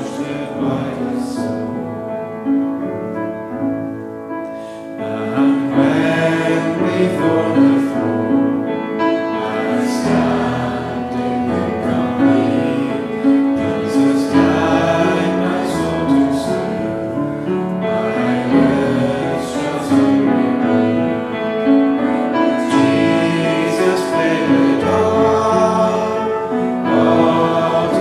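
Church congregation singing a hymn together in held, sustained lines, with a short breath between phrases.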